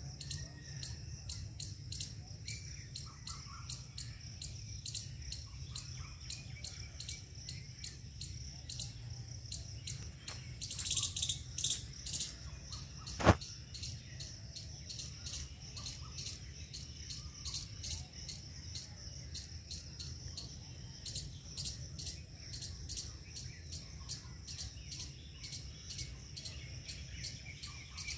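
Steady outdoor ambience of rapid, high-pitched chirping, over a low rumble, with a single sharp click about thirteen seconds in.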